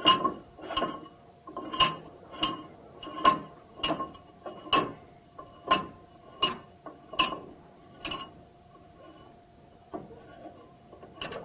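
Metal clinks, about one every three-quarters of a second, each with a short ring, as a steel inlet-adapter pipe nipple is turned by hand on its threads in a cast-iron spill container base. The clinks stop about eight seconds in, leaving a few faint ticks.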